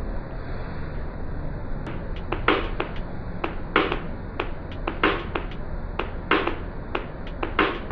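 Finger snaps on a steady beat of a backing music track, one about every 1.3 seconds starting about two seconds in, with softer ticks between them.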